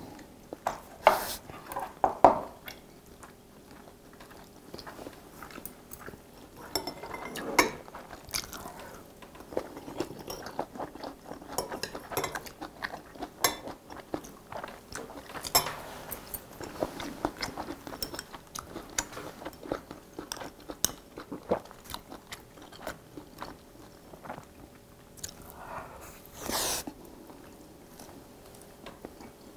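Close-up chewing and eating, with metal chopsticks and a spoon clicking against ceramic bowls. Small clicks run throughout, with a few louder clatters, the biggest a couple of seconds in and again near the end.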